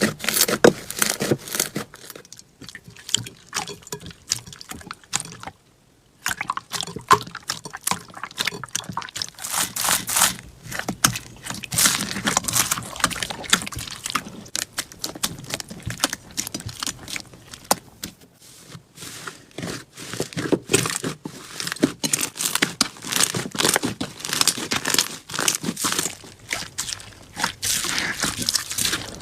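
Slime being worked by hand: dense, irregular crackling and clicking, with a short silence about five and a half seconds in.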